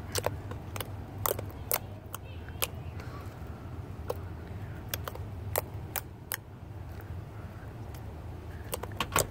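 Homemade fluffy slime of glue and foaming hand soap being squished and played with by hand, giving an irregular series of sharp sticky pops and clicks over a low steady hum.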